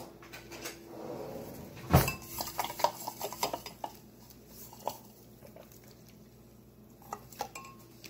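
Stemmed drinking glass knocked and clinked as a straw is put into it: one sharp knock about two seconds in, then a quick run of light clinks and taps that thins out, with a few more near the end.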